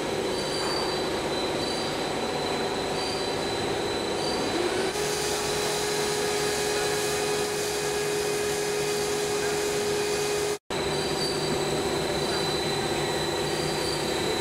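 Cable sheath extrusion line running: steady mechanical noise from the extruder and line drives, with a steady whine. The sound cuts out for an instant about ten and a half seconds in.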